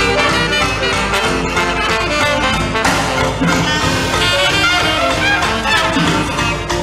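Traditional New Orleans jazz band playing live: brass and clarinet lines together over a rhythm section with drums, in a hymn tune taken at a swinging beat.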